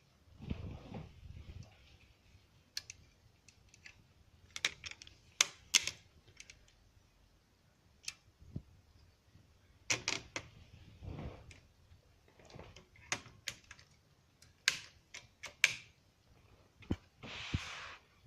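1939 Triumph Standard 12 manual typewriter being typed on: irregular sharp key strikes, some in quick clusters, with a few dull thuds. A short rasping noise lasting about a second comes near the end.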